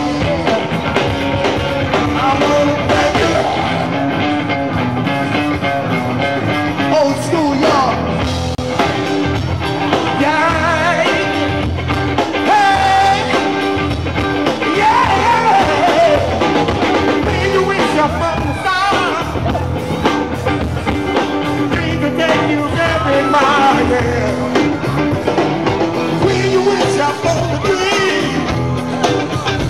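Live blues band playing an upbeat rock-and-roll number with singing, loud and steady throughout.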